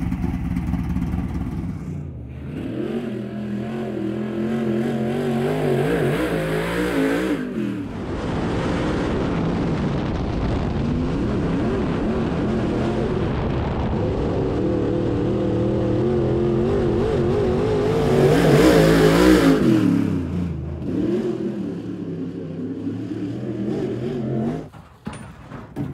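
Dirt modified race car's V8 engine revving up and down as it laps a dirt oval, the pitch rising and falling with throttle, in several short takes joined by abrupt cuts. It is loudest about three-quarters of the way through.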